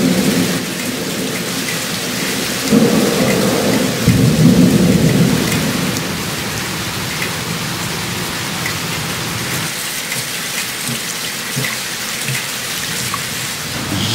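Thunderstorm: steady heavy rain, with thunder rumbling as it begins and again in two rolls about three and four seconds in, dying away by about six seconds. After that, only the rain.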